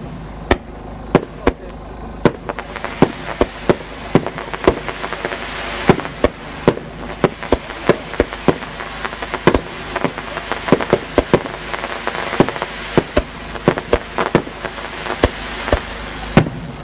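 Fireworks display: a fast, irregular string of sharp bangs from bursting aerial shells, several a second, over a steady hissing crackle.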